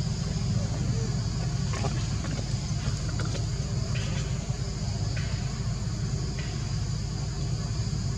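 Steady low outdoor rumble, with a few short, high chirps scattered through it.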